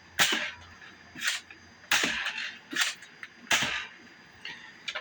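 Nerf Elite Mega Double Strike spring blaster being primed and fired with Mega darts, about three times in quick succession: a run of sharp pops and plastic clacks, some three quarters of a second apart.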